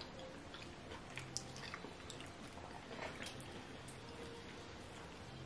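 Faint eating sounds: chewing, and soft sticky squishes of fingers working pounded yam and soup on a plate, with a few small clicks scattered through the first few seconds.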